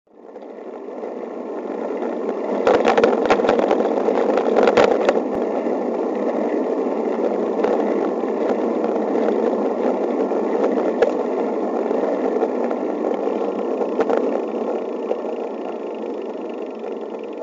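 Steady rushing wind and rolling noise on a camera riding along a bike lane, fading in over the first couple of seconds. A run of rattling clicks comes about three to five seconds in, and one more near fourteen seconds.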